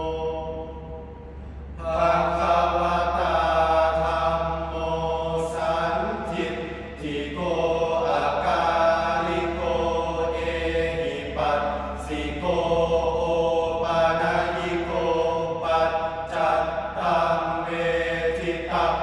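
Young men chanting Thai sarabhanya, a melodic Buddhist verse chant, in long held phrases with short breaks between them. The voices pause briefly early on and come back in about two seconds in.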